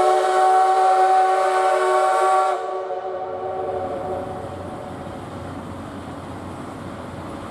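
Steam whistle of the C61 20 steam locomotive sounding a loud, long blast that cuts off sharply about two and a half seconds in, followed by the lower, steady rumble of the train running.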